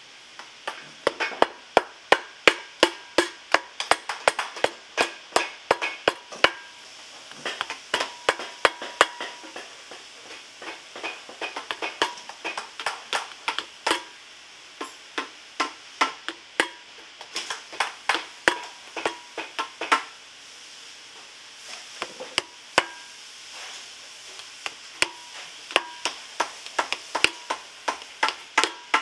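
Hammer tapping small nails through a leather sole into a boot, in runs of sharp strikes about two or three a second with short pauses between runs; each strike rings briefly.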